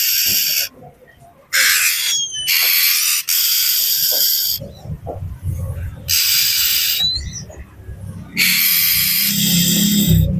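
Oriental magpie-robin giving harsh, rasping scolding calls, about six in a row with a longer one near the end and a few short whistled notes between: the noisy, agitated calling used to provoke other magpie-robins. A low rumble runs under the second half.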